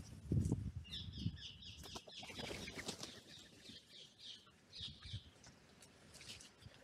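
Wingbeats of crows flushing off the ground, then a bird calling in a quick run of short high notes for a few seconds.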